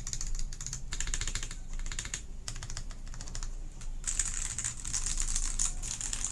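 Fast, continuous typing on a CIY GAS67 gasket-mounted mechanical keyboard with Akko Jelly Purple switches, a polycarbonate plate and PBT dye-sub keycaps: a rapid stream of key clacks that grows denser and brighter about two-thirds of the way in.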